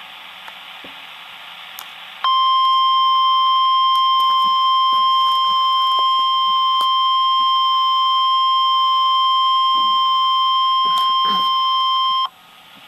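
NOAA Weather Radio warning alarm tone: one steady high tone near 1050 Hz that sounds a severe thunderstorm warning. It comes in about two seconds in over radio static hiss, holds for about ten seconds, and cuts off sharply.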